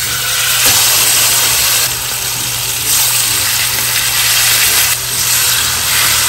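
Marinated T-bone steaks sizzling loudly in hot oil in a frying pan: the sizzle starts suddenly as the first steak goes in and swells again every couple of seconds as more steaks are laid in.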